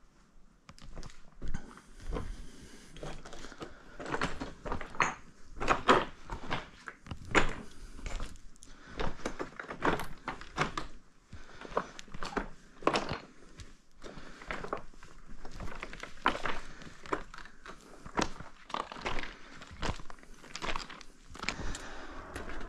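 A hiker's footsteps on a rough trail: uneven, sharp steps, about one or two a second.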